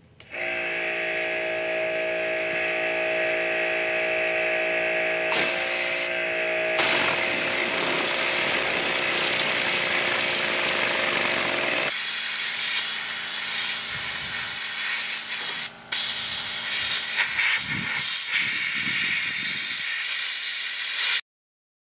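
Pressure washer running, its jet spraying the mud and grease off a car's rear axle: a steady pump hum under a loud hiss. The hiss grows louder about seven seconds in. The hum drops away at about twelve seconds while the hissing goes on, and the sound cuts off abruptly near the end.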